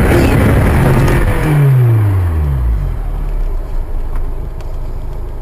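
Road vehicle: a low engine hum drops steadily in pitch over about a second and a half, over constant road noise.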